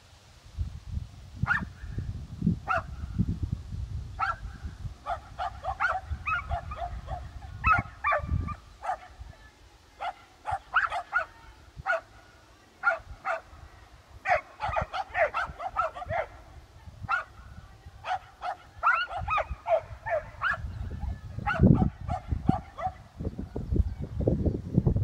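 Rubble search dog barking repeatedly in fast runs with short pauses, the sustained bark alert a disaster search dog gives at a find of buried human scent.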